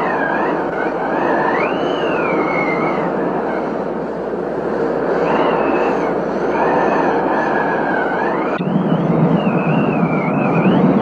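Thunderstorm wind and heavy rain, a steady rush with a thin whistle that wavers up and down in pitch. About eight and a half seconds in the sound changes abruptly and a deeper rumble comes in.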